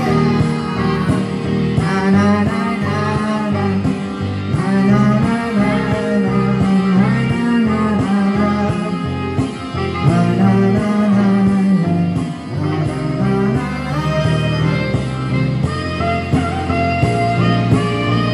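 Recorded backing track of a slow pop ballad, with a man singing over it into a handheld microphone.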